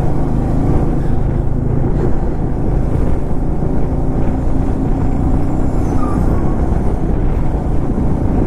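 Motorcycle running at a steady road speed, a constant low rumble.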